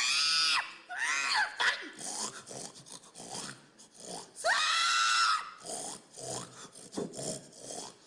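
Pig squeals and grunts: three high-pitched squeals, the longest about halfway through, with short grunts in between.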